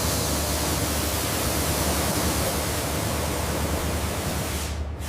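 Steady, even hiss with a low rumble beneath it, dropping out for a moment just before the end.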